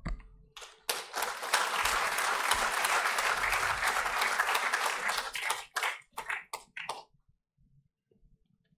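Audience applause, starting suddenly about a second in, then thinning to a few scattered claps and stopping about seven seconds in.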